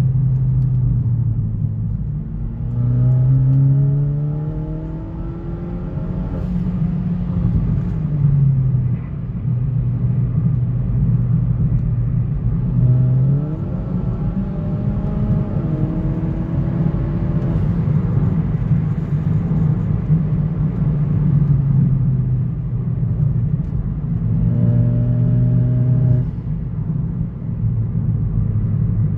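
2018 Hyundai Elantra GT Sport's 1.6-litre turbocharged four-cylinder running through a freshly fitted aFe axle-back exhaust while driving. Its pitch climbs under acceleration three times and settles back between, with a steady low drone.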